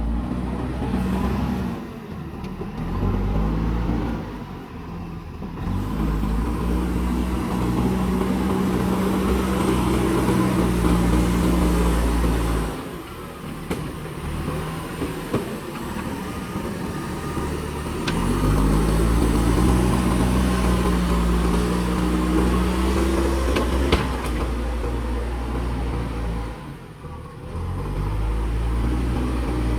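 Diesel engine of a JCB backhoe loader revving up under load and settling back to a lower speed several times, in the rhythm of a dig-and-load cycle. A single sharp knock comes about two-thirds of the way through.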